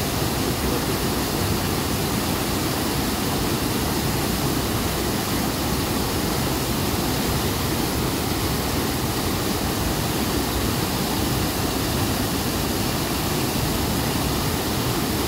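Waterfall in spate after heavy rain: white water rushing down a rocky channel, a loud, steady, deep rush that never lets up.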